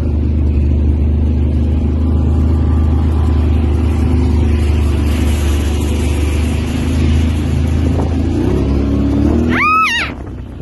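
A vehicle engine running steadily with a low hum. Near the end comes a brief high-pitched tone that rises and falls.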